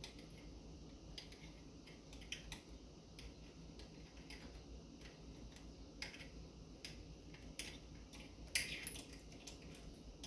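Scattered small clicks and light metallic taps of a hand tool and parts being handled on a small two-stroke engine under assembly, with one louder, longer click late on.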